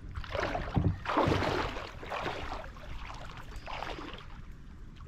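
Feet wading through shallow river water beside a kayak: three bursts of splashing and sloshing, the middle one the longest and loudest.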